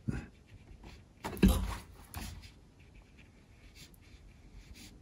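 Faint scratching of a paintbrush stroking across watercolour paper, with a sharp click at the very start and a short, louder noise about a second and a half in.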